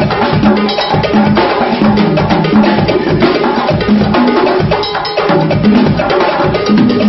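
A set of congas played by hand in a fast solo: a dense, rapid stream of pitched open tones and sharp slaps.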